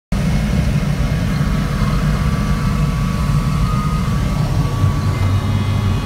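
Rushing airflow in the cockpit of an ASK 21 glider diving steeply in a fast descent: a steady, loud, low rush with a faint high whistle over it.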